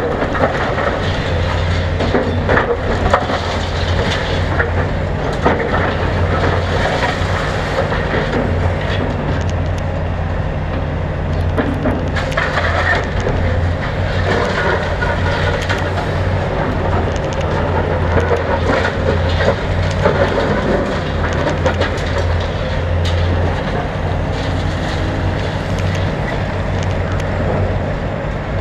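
Hitachi Zaxis 450LC excavator's diesel engine running steadily under working load while its bucket breaks into brick and masonry walls, with frequent knocks and clatter of falling rubble.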